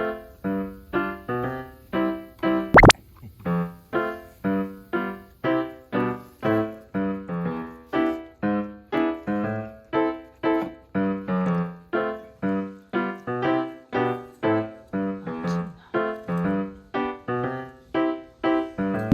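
Background piano music: a light keyboard tune of evenly paced notes, about two a second, with one sharp click about three seconds in.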